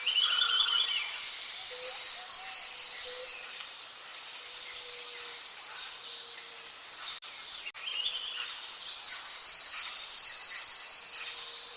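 Nature ambience: a steady chorus of trilling insects, with short bird calls near the start and again about eight seconds in.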